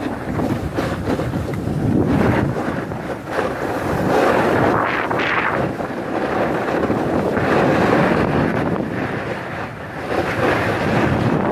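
Wind buffeting a handheld 360 camera's microphone during a fast descent on snow, mixed with the hiss of sliding over packed snow. It swells and eases in several surges.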